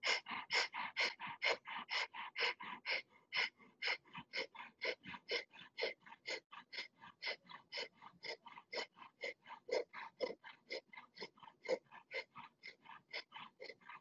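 A woman doing breath of fire: rapid, rhythmic, forceful breathing through the nose, a few even breaths a second, driven by pumping the belly.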